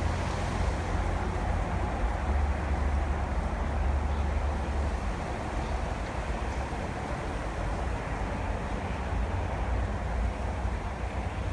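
Steady outdoor background rumble with an even hiss, the deepest part strongest; no birdsong stands out.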